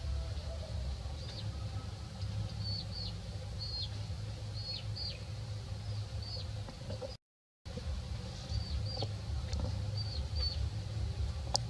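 Short high chirps repeat every half second or so over a steady low hum, and the audio cuts out completely for about half a second around seven seconds in.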